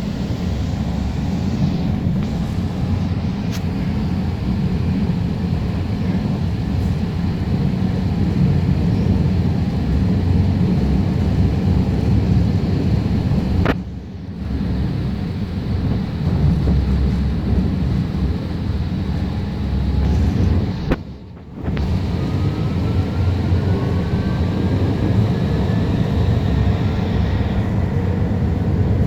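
Alstom Citadis Spirit light rail train running, heard from inside the car: a steady low rumble of wheels on rail and running gear. Twice the sound dips briefly, and over the last several seconds a faint whine rises in pitch.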